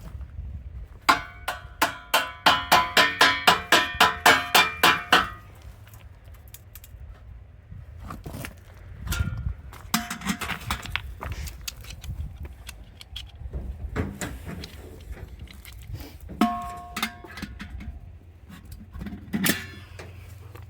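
Hammer blows on a seized rear wheel of a Dodge D350 truck, to break it free of the hub: a fast run of about a dozen ringing metal strikes, three or four a second, then scattered single strikes.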